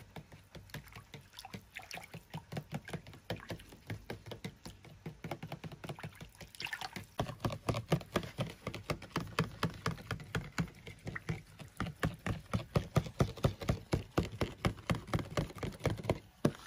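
Metal fork whisking coconut milk, made from coconut powder and water, in a plastic tub. The fork clicks quickly and regularly against the tub while the liquid sloshes, getting louder about seven seconds in.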